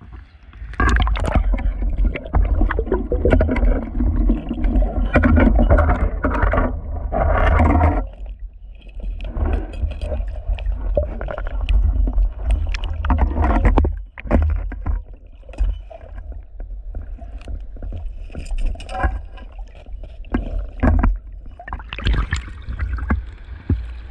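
River water sloshing, splashing and gurgling around an action camera being dipped in and out of the water, with muffled underwater rumble and knocks from the camera being handled.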